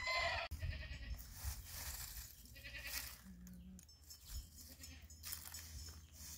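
Livestock bleating, the clearest bleat right at the start.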